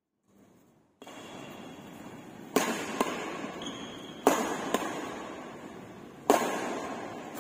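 Badminton rackets striking a shuttlecock during a doubles rally: about five sharp cracks, some in quick pairs, each ringing briefly in the hall over steady hall background noise, which cuts in about a second in.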